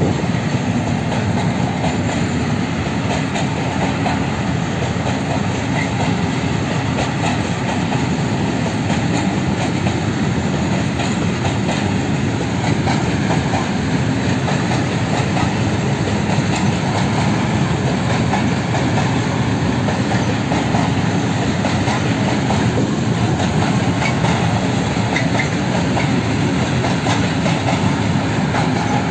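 Long freight train of open-top gondola wagons rolling past, its steel wheels clattering steadily over the rail joints in a dense, continuous rumble.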